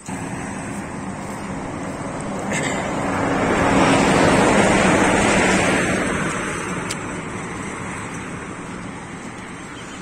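A vehicle passing on the highway: tyre and engine noise that swells to a peak about halfway through and then slowly fades.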